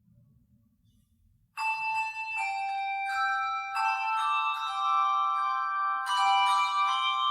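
Handbell choir ringing: after a faint hush, several bells are struck together about a second and a half in, then chord after chord of long-ringing bell tones.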